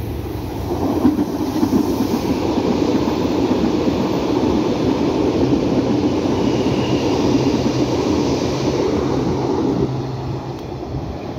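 Yellow Berlin U-Bahn small-profile train passing close by, a steady rumble of wheels on rails that swells about a second in and eases off near the end. A low steady hum runs under it in the second half.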